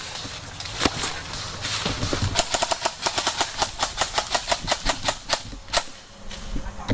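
Airsoft guns firing: a single shot about a second in, then rapid bursts of sharp cracks, about eight to ten a second, thinning to scattered shots near the end.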